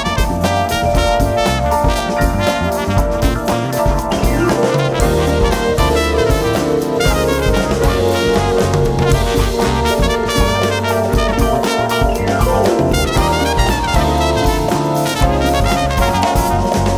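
Background music: an upbeat jazzy tune with brass over a steady drum beat.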